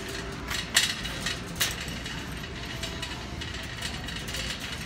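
Wire shopping cart rolling across a store floor, its wheels rumbling and the basket rattling, with a sharp clack just under a second in and another about half a second later.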